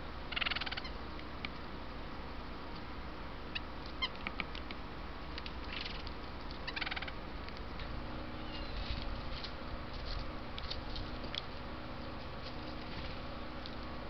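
Red-bellied woodpecker giving short rolling churr calls of about half a second each, one near the start and two more around the middle, with a few short ticks between them and fainter short calls later on.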